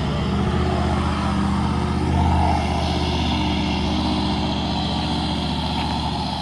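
76 Series LandCruiser's engine running under load as it climbs a dirt track, a steady low drone that swells briefly about two seconds in.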